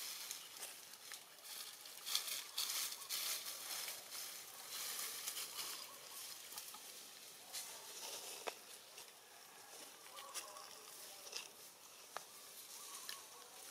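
Dry leaves rustling and crackling in irregular bursts, busiest in the first half, with a few sharp clicks later on.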